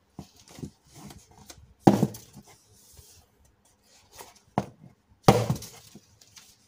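Cat-ear self-defense keychain stabbed into a cardboard box, punching holes: a string of sharp stabs and thuds on cardboard, the two loudest about two seconds in and about five seconds in.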